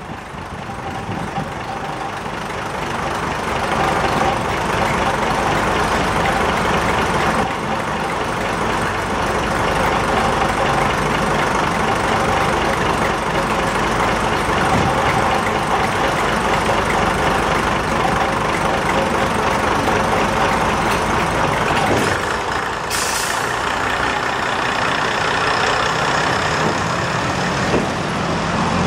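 Class 122 single-car diesel railcar's underfloor diesel engines running, growing louder over the first few seconds and then holding steady. A brief hiss of air comes about three-quarters of the way through.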